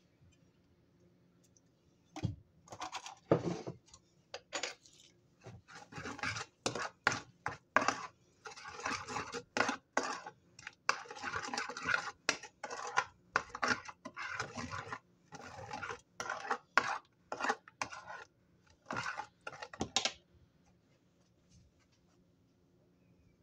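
Metal spoon scraping and clinking against a bowl as it stirs a thick mustard-and-seasoning paste, in quick irregular strokes starting about two seconds in and stopping a few seconds before the end.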